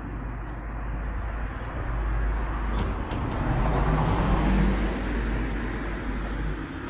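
A car drives past close by. Its tyre and engine noise swells to a peak about four seconds in, then fades.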